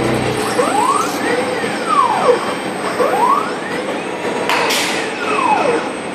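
CNC machine axis motors whining through two moves, each a tone that rises and then falls as the axis speeds up and slows down. A sharp metallic click comes about four and a half seconds in.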